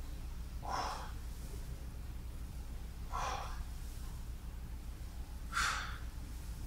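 A man's hard breaths while doing weighted squats: three short, sharp exhalations about two and a half seconds apart, one per rep, over a steady low hum.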